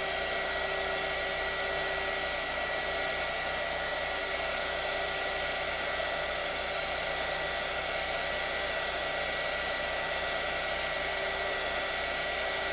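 Heat gun running steadily, its fan blowing hot air with a thin high whine, held close over an RC tire to soften the glue bonding the tire to its plastic rim.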